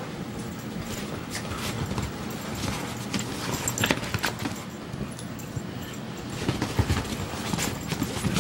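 A cocker spaniel and a rat terrier play-fighting at close range: scuffling with scattered irregular knocks and clicks from paws and bodies.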